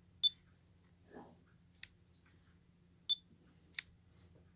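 Nikon COOLPIX B500 compact camera beeping and clicking as its buttons are pressed to step through the menus: two short high beeps, one near the start and one about three seconds in, and two sharp clicks about two seconds apart.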